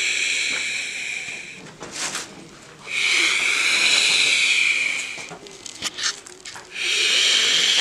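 Eerie, rasping breath-like hiss, a ghostly sound effect, swelling and fading three times for about two seconds each. A few sharp clicks fall in the gaps between.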